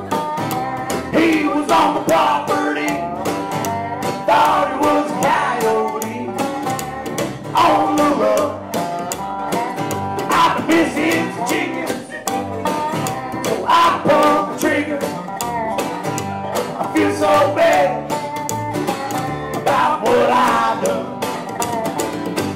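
Acoustic string band playing live: strummed acoustic guitars and a plucked upright bass under a bending melodic lead line.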